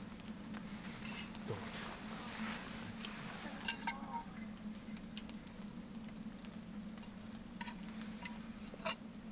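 A handful of light, separate clinks and taps of cookware and tableware during a campfire barbecue meal, over a faint steady low hum.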